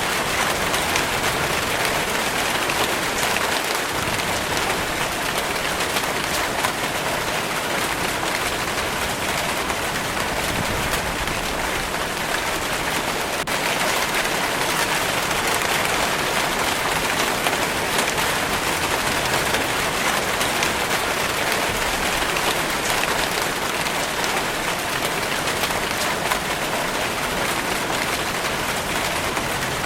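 Steady rain falling and pattering on a surface, an even rushing hiss with many fine drop patters throughout.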